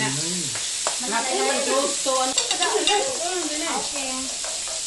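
Pork belly and bacon sizzling steadily on a tabletop grill plate, with a high-pitched voice coming and going over it.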